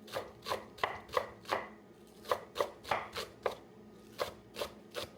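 Knife chopping on a cutting board: three quick runs of four or five sharp chops, with short pauses between.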